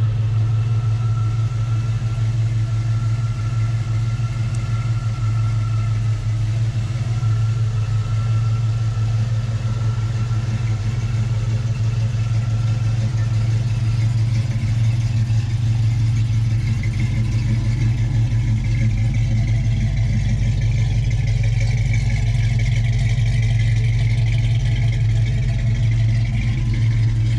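1971 Pontiac Ventura's engine idling steadily.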